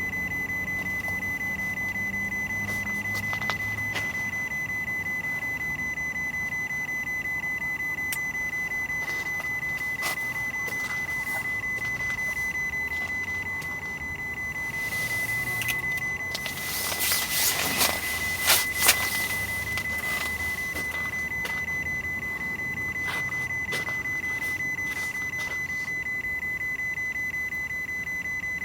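A steady high-pitched electronic tone, with scattered sharp clicks and a short louder cluster of clicks and scraping about 17 to 19 seconds in.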